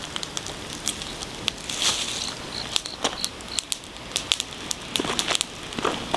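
Wood fire burning in the open, crackling with many irregular sharp pops.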